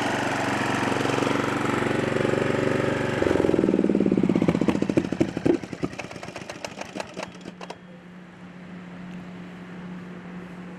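Snapper 28-inch Hi-Vac rear-engine riding mower's 12.5 HP engine running steadily. About three seconds in it changes note and is shut off, its strokes slowing until it stops about eight seconds in. A faint steady low hum remains.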